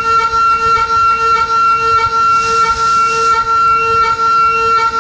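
High-speed spindle of a Datron M8Cube CNC mill running a small end mill around a circular pocket in an aluminium block: a steady high-pitched whine that pulses slightly a few times a second, with a brief hiss in the middle.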